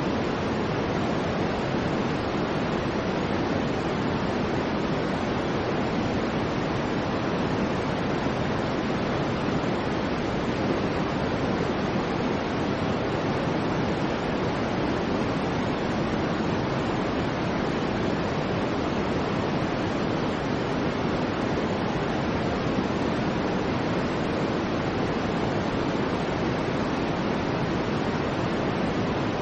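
Soft white noise for baby sleep: a steady, unchanging rushing hiss, weighted toward the deeper tones rather than sharp and bright.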